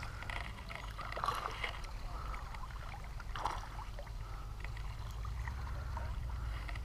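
Shallow river water running steadily under a low rumble, with scattered light ticks and a small splash as a lure is retrieved on a spinning reel and a fish is hooked near the end.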